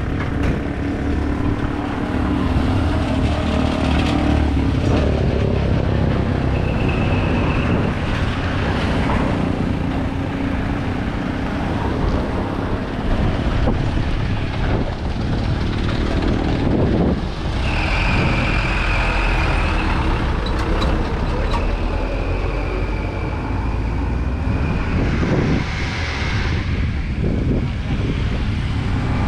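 Road traffic noise with motor vehicle engines running steadily.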